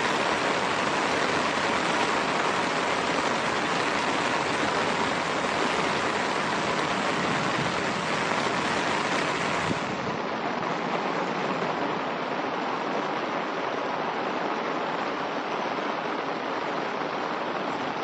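Steady rain falling on grass and a muddy dirt track, an even hiss. About ten seconds in it turns slightly softer and duller.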